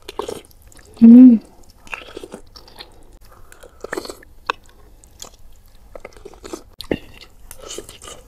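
Close-miked slurping and chewing of instant ramen noodles, with scattered sharp clicks of a metal spoon and fork against a glass dish. A short, loud voiced sound comes about a second in.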